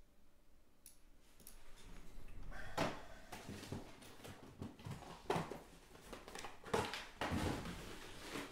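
Objects being handled: rustling with irregular light knocks and clacks, starting about two seconds in after a few faint ticks.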